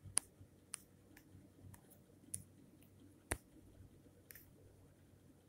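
Faint taps on a phone touchscreen while drawing: about seven short, sharp clicks at irregular intervals, the loudest just after the start.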